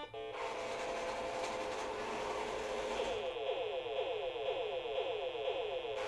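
Milton Bradley Big Trak programmable toy tank running its keyed-in program: a keypad beep at the start, then its electric drive motors whir as it drives forward and turns round. About three seconds in, its laser cannon fires a rapid string of falling electronic 'pew' tones.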